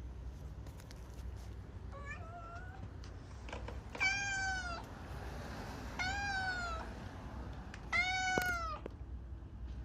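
A high, pitched call repeated about every two seconds, each call arching up and falling away, over a steady low hum.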